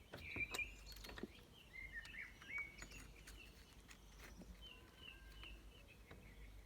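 Faint birdsong: short repeated chirps and little pitch glides in the background. A few light clicks and knocks come in the first second or so.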